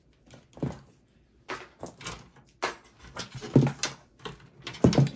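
Cables and plastic connectors being handled inside a steel desktop PC case: irregular clicks, knocks and rustles, the loudest a little past three and a half seconds and again near the end.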